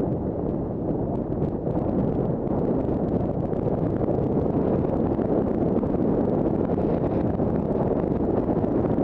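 Steady rush of wind buffeting the microphone of a helmet-mounted camera as a skier glides downhill, mixed with the skis sliding over packed snow.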